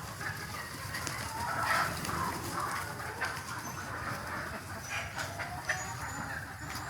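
A flock of desi chickens clucking and chirping in a poultry shed, over a steady low rumble with scattered clicks and a few short high peeps toward the end.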